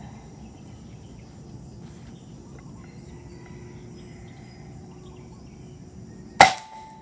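Air rifle firing once, a sharp crack about six seconds in followed by a brief ringing tone, over a steady outdoor background hum.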